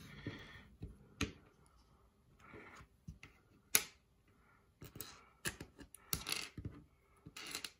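Plastic Lego-style building bricks clicking and clattering as they are handled and picked through, with irregular sharp clicks and a few short rustles.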